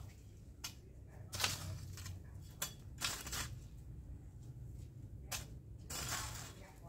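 A long-handled digging tool chopping and scraping into soil: about six irregularly spaced strikes, the loudest about one and a half seconds in.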